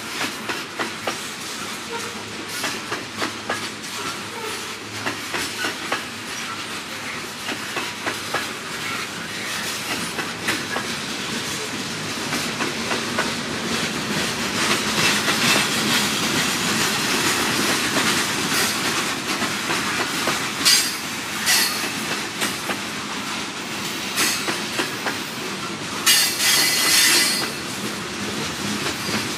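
Loaded steel coal hopper cars of a long freight train rolling by on a curve. The wheels give a steady clickety-clack over the rail joints, with several bursts of high wheel squeal; the longest comes near the end.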